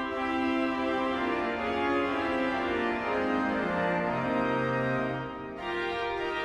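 Pipe organ playing held chords, the bass stepping down to a low sustained note, with a short pause between phrases about five and a half seconds in.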